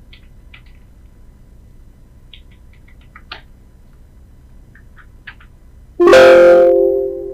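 Faint computer keyboard and mouse clicks as a value is typed into a 3D modelling program. About six seconds in, a sudden loud sound holding two steady pitches together cuts in and fades over about a second; it is the loudest thing here and its source is not shown.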